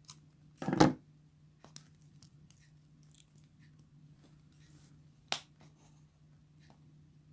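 Copper cable strands being wrapped by hand around a married joint, making faint scattered ticks and scrapes, with a thump just under a second in and a sharp click a little after five seconds. A steady low hum runs underneath.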